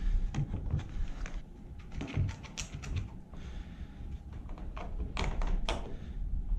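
A plastic one-handed trigger bar clamp being handled and set against pine door boards: scattered clicks and light knocks, with a few sharper clicks near the end.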